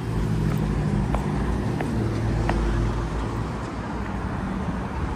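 Road traffic: a motor vehicle's engine rumbling, loudest over the first three seconds and then easing. Over it come short, regular ticks, about one every 0.7 seconds, from the accessible pedestrian signal's push-button locator tone.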